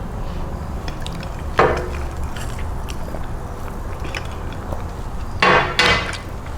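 Drinking and eating mouth sounds: swallowing and chewing, with two short louder mouth noises about one and a half seconds in and again near the end, over a steady low hum.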